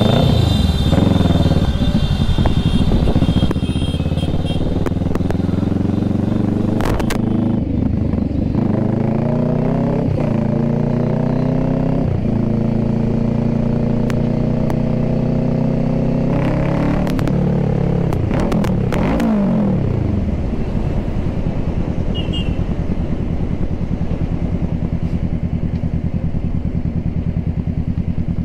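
Kawasaki sport motorcycle engine pulling away, rising in pitch through several gear changes. About twenty seconds in, the revs fall away and the engine settles into a steady, low-pitched run.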